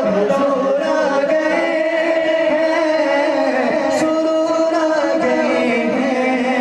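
Music: a voice singing long, held notes that bend slowly in pitch, in a chant-like melody.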